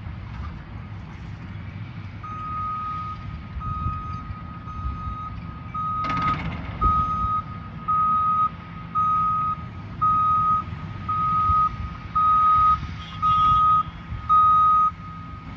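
A construction machine's reversing alarm beeping at one pitch about once a second, getting louder, over a steady low engine rumble. About six seconds in there is a single sharp knock.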